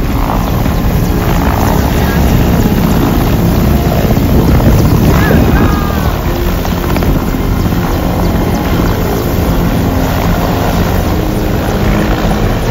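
Mi-8 military helicopter in flight: the loud, steady din of its twin turboshaft engines and main rotor.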